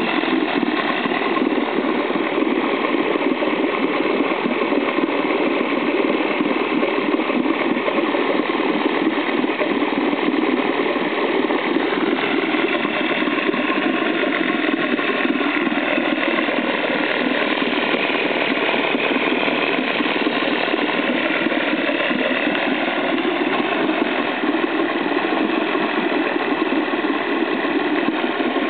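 Soviet Neptun-23 two-cylinder two-stroke outboard motor with magneto ignition, running steadily.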